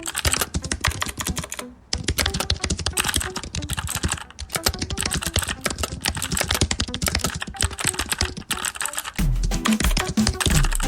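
Computer keyboards clattering with rapid, continuous keystrokes as several people type fast at once. Background music plays underneath, its bass beat getting louder about nine seconds in.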